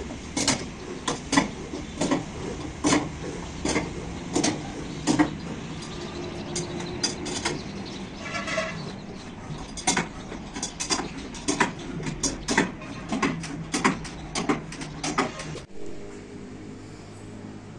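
Irregular metallic clicks and clanks, about one or two a second, as a wrench turns the nuts on the threaded steel rods of a wooden door press to clamp a panel down, with a brief squeak partway through. Near the end the clicking stops suddenly and a quieter, steady low hum remains.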